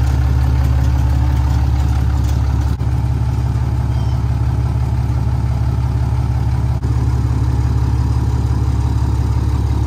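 Mega truck's engine idling steadily with a deep, even rumble; the sound dips for an instant twice.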